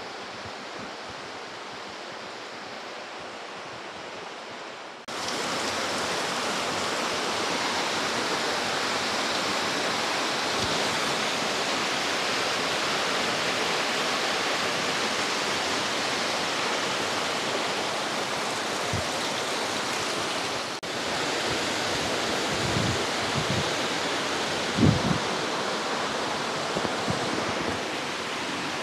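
Waterfall water rushing steadily, much louder after a cut about five seconds in, with a brief low thump near the end.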